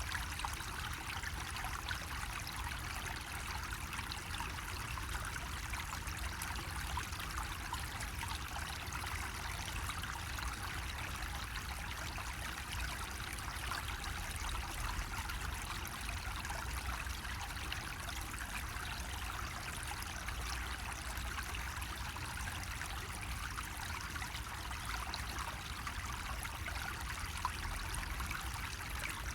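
Water running steadily from a bamboo spout, a continuous trickle and splash over a low, steady rumble.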